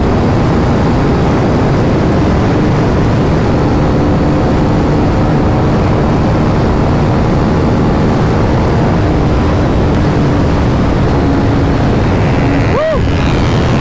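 Steady wind rush on the microphone at highway speed, over the steady drone of a modified KTM RC 390's single-cylinder engine cruising. A short rising-and-falling tone comes in near the end.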